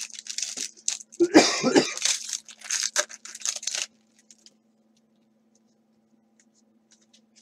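Foil wrapper of a trading-card pack being torn and crinkled while the cards are pulled out and flipped through, for about four seconds. It is loudest about a second and a half in, and after that only a faint low steady hum is left.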